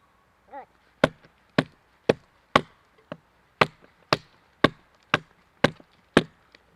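Axe chopping wood: about eleven sharp, evenly paced strokes, roughly two a second, starting about a second in.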